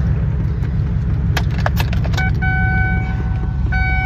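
A 2006 Impala SS's 5.3-litre V8 idling with a steady low rumble, and a short jingle of keys about a second and a half in. From about two seconds in, a chime tone sounds in long pulses of about a second each.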